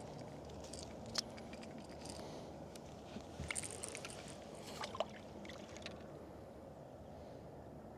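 River water flowing with a steady low rush, with a few sharp little clicks and splashes between about one and six seconds in as a bait is worked in the current.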